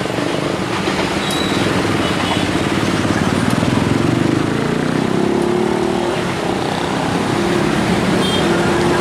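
Street traffic at a railway level crossing: a steady mix of motorcycle and car engines running past, with engine pitches shifting as vehicles move through.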